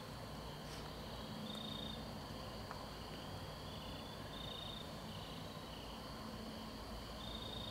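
Night insects, crickets or similar, calling in the woods: short high-pitched chirps repeating every second or two over a steady low hiss.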